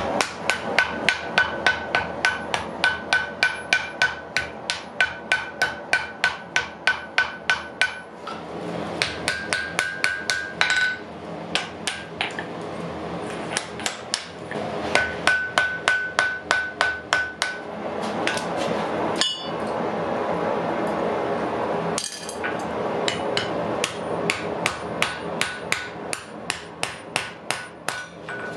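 Hand hammer striking red-hot iron on an anvil, fast runs of about three blows a second with a clear anvil ring on many blows. The runs break off several times for short pauses, with the longest a few seconds before the end.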